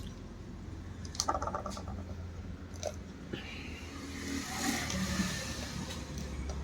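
Small clicks and taps of meter probes and handling on a controller circuit board over a steady low hum, with a hiss that swells and fades in the second half.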